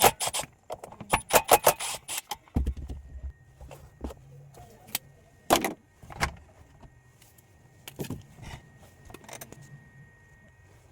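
Clicking and clattering of tools and small hard parts being handled: a quick run of clicks in the first two seconds, then scattered knocks.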